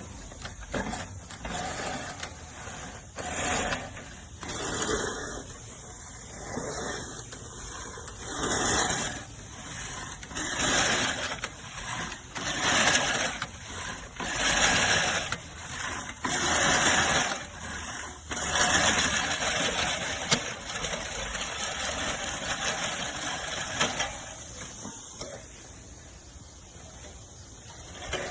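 Push reel mower with a five-blade reel, a LawnMaster LMRM1801, whirring and snipping through grass as it is pushed in repeated passes. Each pass swells and fades over a second or two, and the sound eases off about three-quarters of the way through.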